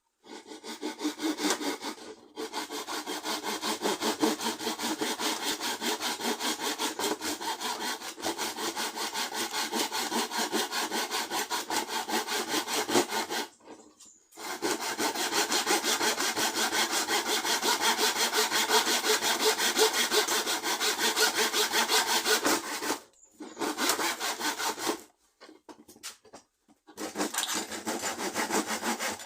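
A saw cutting a piece of wood to length in quick, even back-and-forth strokes, stopping briefly a few times, most clearly about two seconds in, around the middle, and in several short breaks near the end.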